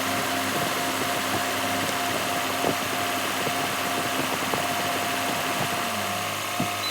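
Car's air-conditioning system running during a refrigerant (R134a) recharge: a steady mechanical hum with a constant whine, and a lower tone that slides down shortly before the end.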